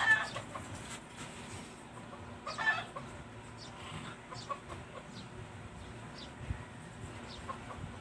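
Short clucking calls of a fowl, twice, about two and a half seconds apart, with faint light clicks in between.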